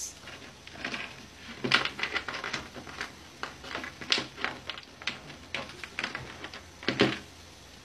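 Irregular light clicks and taps with a few louder knocks, from ingredients and utensils being handled at a cooking pot of simmering broth.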